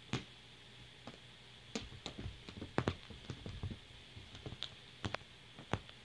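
A kitten's paws and claws patting and scuffing on a fabric couch cushion as it scrambles after its own tail: irregular light taps and thumps, busiest in the middle seconds, with a last one near the end.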